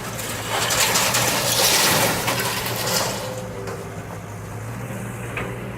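Excavator's diesel engine running steadily. Over the first three seconds there is a loud rush of noise with clattering clicks, which then dies down.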